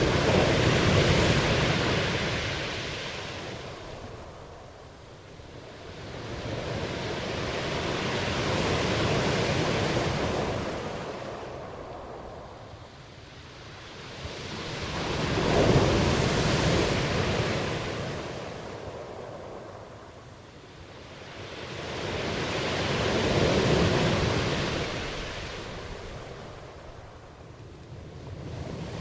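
Waves surging and receding, a rushing noise that swells and fades about every seven to eight seconds.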